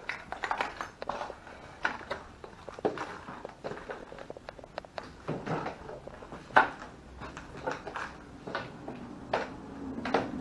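Footsteps crunching and scuffing over rubble and rubbish on a floor, with scattered irregular knocks and clicks; one sharp knock about six and a half seconds in is the loudest.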